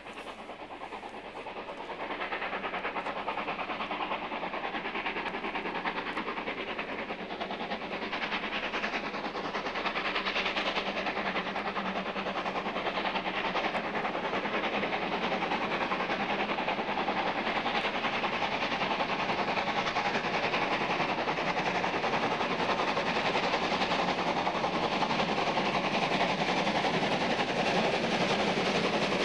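DR class 03.10 three-cylinder Pacific steam locomotive working a train under load, its three-cylinder exhaust sound growing steadily louder as it approaches.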